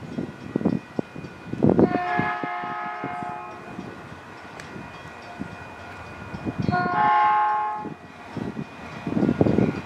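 Locomotive air horn sounding two long multi-note chord blasts, one about two seconds in and the other about seven seconds in, over the low rumble of a train.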